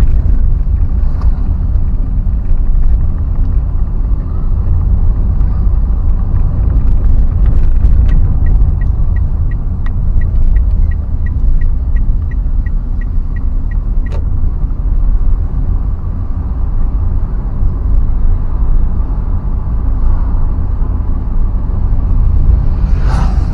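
Steady low road rumble of a vehicle travelling along. In the middle comes a run of quick, evenly spaced high beeps, about three a second, for several seconds, and near the end a brief higher squeal.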